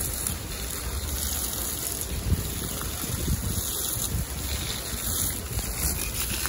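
Steady rushing noise, even and without rhythm, cutting off abruptly at the end.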